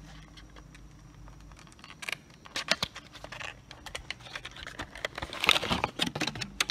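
A small cardboard retail box being opened and its clear plastic insert tray handled out: irregular scraping, clicking and rustling of cardboard and plastic packaging, busiest and loudest near the end.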